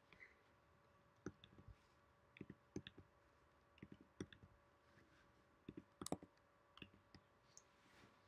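Faint, irregular computer mouse clicks, several in quick pairs like double-clicks, the loudest about six seconds in.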